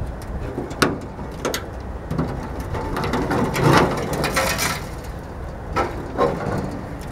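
Rust-weakened sheet metal of a Ford Mustang unibody shell being forced apart by hand. There are a few sharp metal knocks, a longer grating, tearing stretch in the middle as the metal gives way, then two more knocks near the end.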